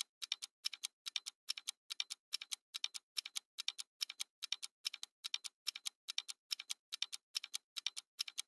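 Clock-ticking sound effect under a countdown: sharp, evenly spaced clicks in quick pairs, a little over two pairs a second.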